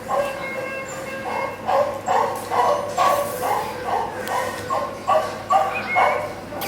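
A dog barking in a fast run of short, pitched yips, about three a second, picking up from about a second in.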